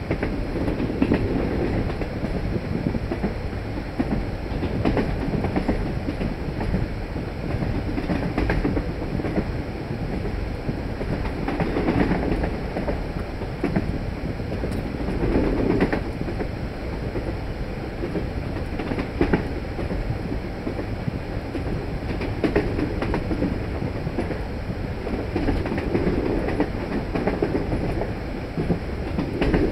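Passenger train running at speed, heard from a carriage: a steady rumble of wheels on the track with a louder clack every three to four seconds.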